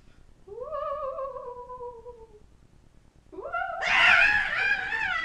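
A high woman's voice making a mock ghost's moan, an "oooo" that rises then slowly sinks, followed about three seconds in by a much louder, wavering wail.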